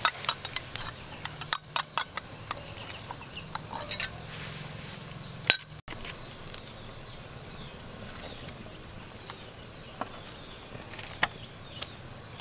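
Metal ladle clinking against a metal soup pot, a quick run of sharp clinks over the first few seconds. After a brief break, the pot of soup simmers with only the odd faint click.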